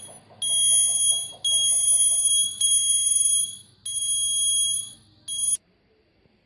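Buzzer of a homemade automatic door alarm sounding a high steady beep in five bursts, the first four about a second long and the last one short, then cutting off.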